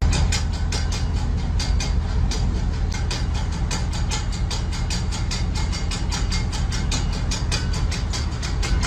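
A machine running with a steady low rumble and a fast, even clicking of about five or six clicks a second.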